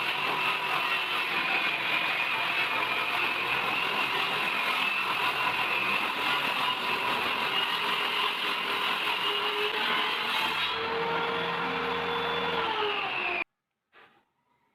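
An electric power tool's motor running steadily with a whine. About eleven seconds in its pitch shifts lower, then the sound cuts off abruptly, followed by a faint click.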